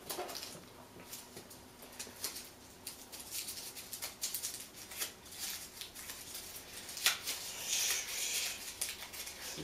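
A crumpled slip of paper being unfolded by hand, crinkling and crackling in quick, uneven rustles that grow thickest about eight seconds in.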